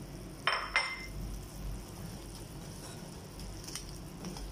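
A stirring utensil clinks twice against the pan about half a second in, and the second clink rings briefly. Fainter stirring follows as the fried cassava pieces are turned in the cooked-down sugar syrup.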